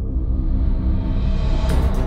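Background music: a low, sustained ambient piece swelling in brightness, with a quick percussion beat coming in near the end.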